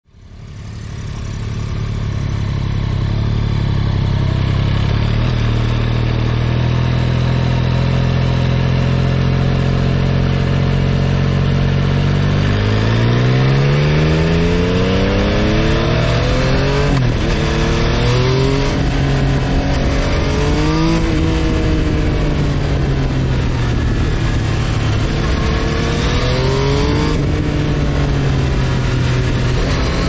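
2022 Yamaha XSR900's inline three-cylinder engine through its stock exhaust, heard from a rear-mounted camera while riding. It fades in, runs at a steady pitch, then from about twelve seconds in rises in pitch as it accelerates, drops at gear changes and falls and climbs again with the throttle.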